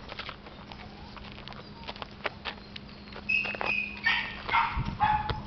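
A small dog whining and yipping in short, high-pitched calls that start a little past halfway and grow louder, after scattered light footsteps on gravel.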